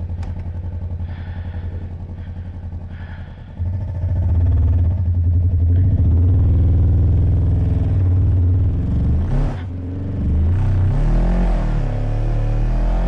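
Kawasaki Versys motorcycle engine running at a low, steady pulse, then opened up sharply about three and a half seconds in and held at high revs as the bike climbs a steep slope with the rear tyre spinning. The revs drop briefly near ten seconds and rise again.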